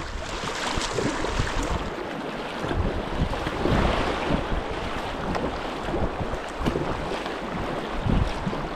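Fast river current rushing past, with wind buffeting the microphone in gusts.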